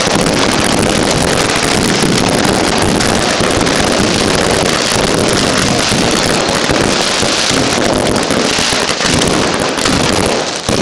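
A dense, continuous barrage of firework rockets from a Yanshui beehive launcher, heard as one loud, steady rushing noise with no separate bangs standing out.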